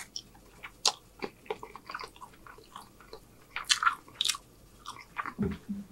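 A person chewing a mouthful of chow mein noodles: scattered wet smacks and small clicks of the mouth, with a few louder smacks a little past halfway through.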